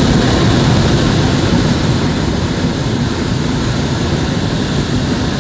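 Hot air balloon's propane burner firing in one long, unbroken burn, a loud steady rush of flame.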